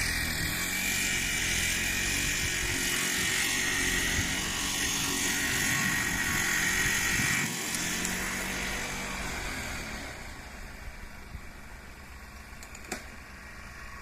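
A small engine running steadily and fairly loud, then dropping off sharply about seven and a half seconds in and fading away over the next few seconds.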